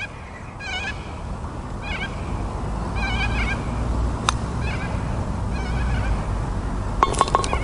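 Birds chirping in short repeated calls, then a single sharp click of a putter striking a golf ball about four seconds in. Near the end comes a short clatter of the ball dropping into the cup.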